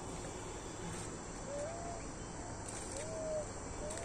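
Crickets chirring steadily over outdoor background noise, with three short whistled notes about a second apart near the end.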